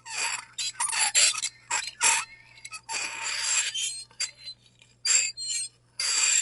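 Metal fork scraping across a ceramic plate in a run of short irregular strokes, some squealing at a high pitch, with brief gaps between them; the longest stroke comes about three seconds in.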